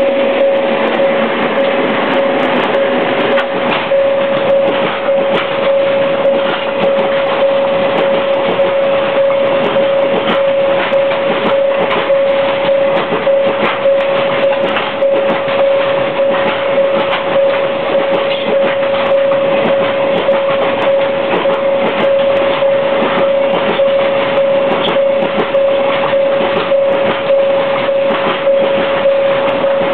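Freight train passing close by: two JR Freight ED79 50-series electric locomotives, then a long string of container wagons. Wheels rumble steadily on the rails and knock rapidly over the rail joints. A steady tone runs underneath throughout.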